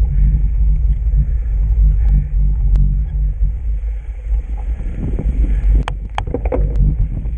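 Heavy wind and trail rumble on the camera microphone of a pedalling mountain bike. A cluster of sharp knocks and rattles comes about six seconds in.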